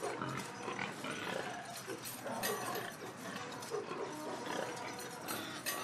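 Farmyard animal sounds, pigs grunting among them, a steady busy mix of short calls.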